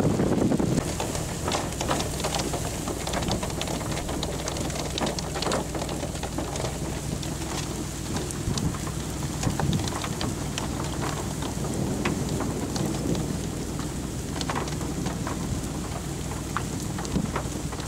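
Rain falling in scattered drops that tap sharply and unevenly, over a steady low hum, with a brief gust of wind noise at the very start.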